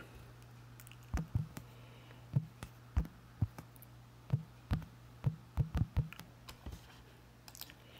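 Keyboard keystrokes typing a short entry: about a dozen irregular clicks, over a low steady hum.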